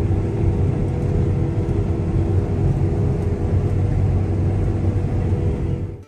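Diesel engine of a harvest vehicle running steadily, a low, even drone.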